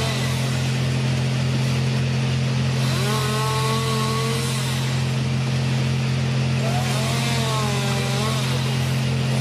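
Compact chainsaw running steadily, its pitch dipping and rising twice as it bites into branches, over a steady low drone.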